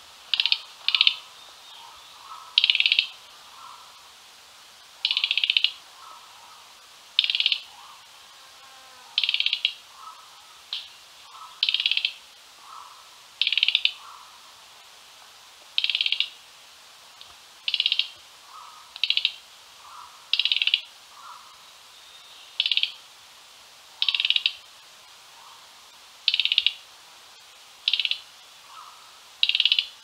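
Mugimaki flycatcher giving short chattering calls, repeated every one to two seconds. Insects hiss steadily underneath, and other birds call more softly in between.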